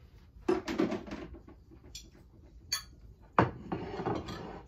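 Dishes and food containers being handled on a table: a sharp knock about half a second in and another about three and a half seconds in, each followed by clattering and rustling.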